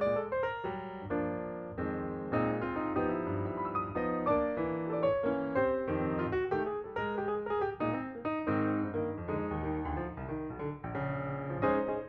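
Background piano music: a steady run of notes with no speech over it.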